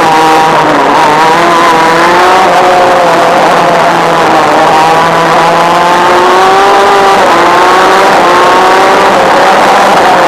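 Two-stroke Honda shifter kart engine at racing speed, heard from on board the kart: a loud, buzzing note that climbs in pitch under acceleration and drops back several times as the kart goes through corners, with a sharp drop about seven seconds in before it climbs again.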